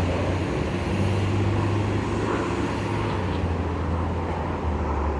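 Autocar CNG garbage truck engine running with a steady low drone through its leaking exhaust, the pitch dropping slightly near the end.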